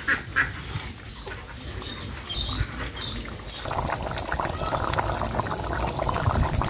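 Metal ladle clinking a few times against an aluminium pot as a hilsa fish and potato curry is stirred, then, about four seconds in, the curry boiling hard with a thick, busy bubbling.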